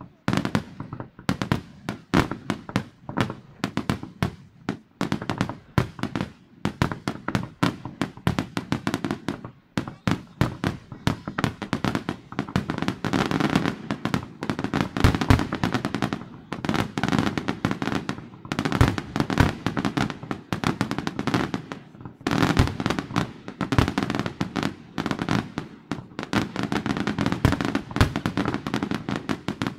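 Fireworks display: aerial shells bursting in quick succession, a near-continuous run of bangs that grows heavier from about halfway through.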